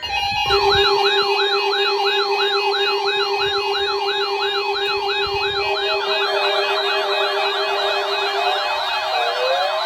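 Weather alert radio receivers set off by a NOAA Weather Radio test, sounding their siren-style alarm: a rapid up-and-down warble about twice a second over a steady tone. About six seconds in, a second warbling alarm joins and overlaps the first.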